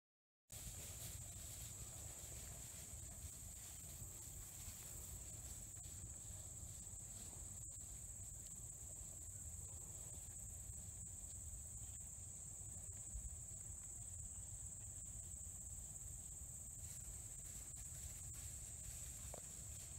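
Field insects chirring in a grass pasture: a faint, steady high-pitched drone over a low rumble.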